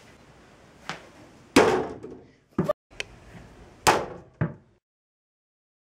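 A small rubber basketball knocking against an over-the-door mini hoop's metal rim and backboard and bouncing, about six sharp knocks with the door rattling; the sound cuts off suddenly near the end.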